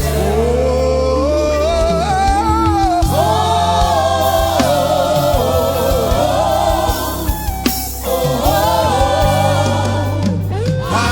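Live gospel praise music: a lead singer and choir singing a held, wavering melody over a steady bass and keyboard backing.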